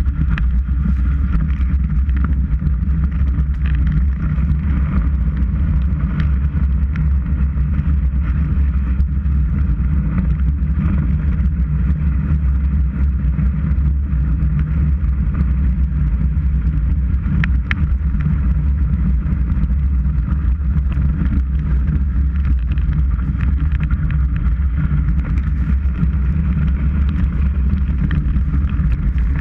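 Wind and ski-on-snow noise picked up by a GoPro mounted on a ski boot during a downhill run: a loud, steady low rumble with a hiss above it, with a few faint clicks.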